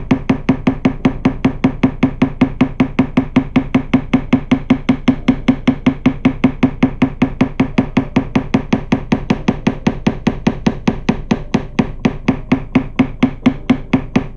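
Rapid, even tapping of a small hammer on the frets of a guitar neck clamped in a neck vise, about five strikes a second, each with a short low ring.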